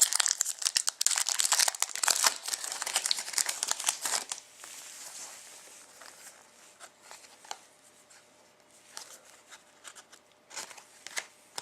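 A foil trading-card pack wrapper crinkling and tearing as it is ripped open, for about the first four seconds. Then quieter rustling and light clicks as the cards are handled.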